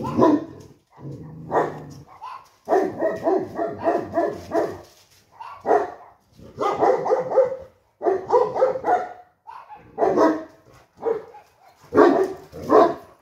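Greek shepherd guardian dogs barking repeatedly in rapid volleys, with short pauses between bursts.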